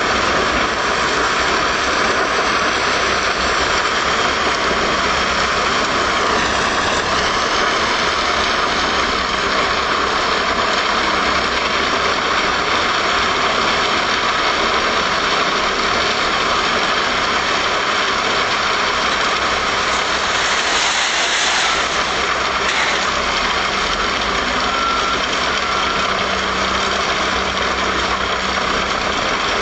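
Truck-mounted wood chipper on a MAN truck running steadily, its engine and chipping drum making a loud, even noise as the crane feeds branches, with a short rise in hiss about two-thirds of the way through.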